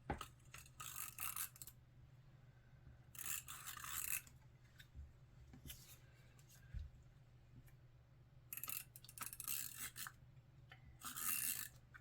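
Paper and cardstock being handled on a craft table: rustling and scraping in four short bursts of about a second each.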